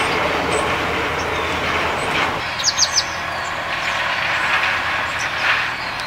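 Steady engine noise of a passing vehicle with a low, even hum, easing slightly about two and a half seconds in. Three short, high bird chirps come just before the three-second mark.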